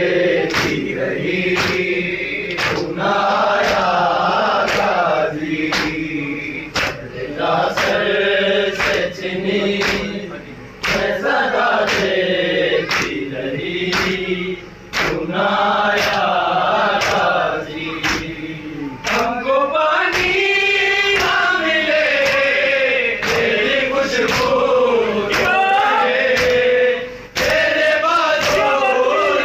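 Men's voices chanting a noha, a Shia lament, with a lead reciter singing into a microphone and a chorus of men singing with him. Under the singing runs a steady rhythm of sharp slaps from hands striking chests in matam.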